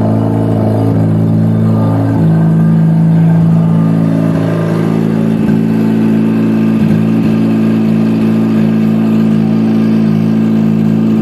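Freshly rebuilt turbocharged Mazda 13B rotary engine of a 1991 RX-7 idling steadily on its first run after the rebuild.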